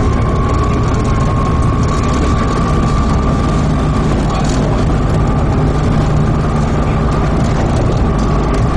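Volvo B7TL double-decker bus's six-cylinder diesel engine running steadily through its ZF Ecomat automatic gearbox, heard from inside the bus, with a steady high whine that is strongest for the first four seconds.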